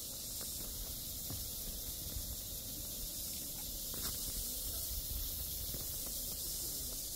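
Steady high hiss, with a low rumble and a few faint knocks underneath.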